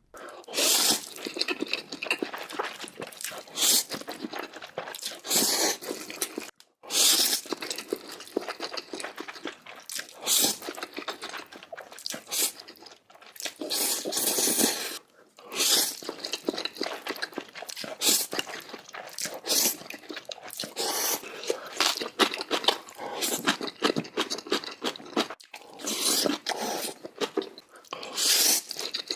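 Close-miked eating of noodles: wet chewing and slurping in quick, irregular bursts, with short breaks where clips change.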